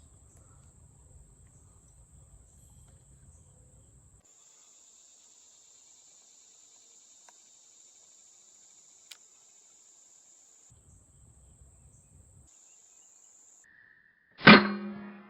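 A single sharp shot from a pellet air rifle near the end, with a short ringing tail. Before it, a faint steady high insect drone.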